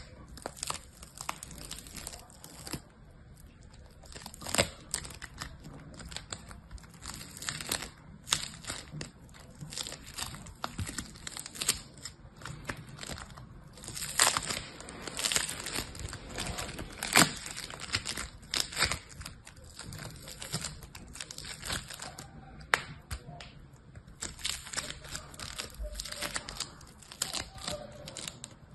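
Foam slime packed with tiny beads being squeezed, stretched and pulled apart by hand, giving an irregular run of crinkly crackles and pops, a few of them sharper and louder.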